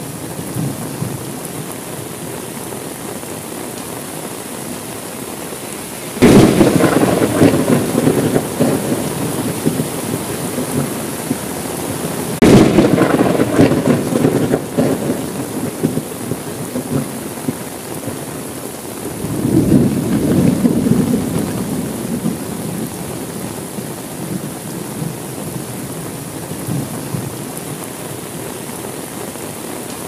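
Steady rain with thunder: a sudden loud crack about six seconds in that rumbles on for a few seconds, a second sharp crack about twelve seconds in, and a softer rumble swelling around twenty seconds.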